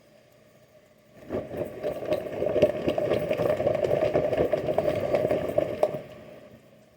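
A motor vehicle's engine comes in about a second in with a rough, rattling sound, holds for about five seconds, then fades away.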